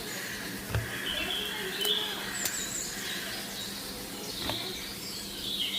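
Small birds chirping and twittering in short repeated calls, with a few sharp clicks scattered through.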